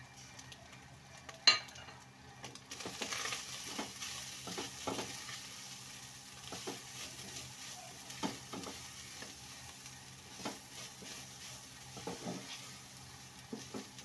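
Minced beef frying and sizzling in a pan while a silicone spatula stirs spices through it, with short scraping strokes against the pan. One sharp knock about a second and a half in, and the sizzle grows louder about three seconds in.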